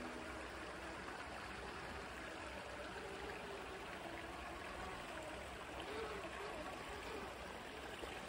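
Shallow stream water flowing steadily over stones, with faint wavering tones in the middle.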